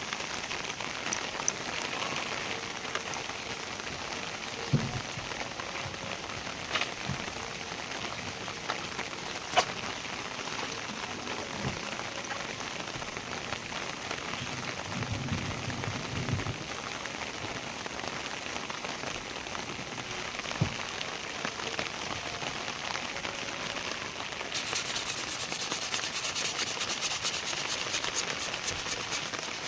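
Steady rain falling, with a few scattered knocks. The rain grows louder and denser near the end.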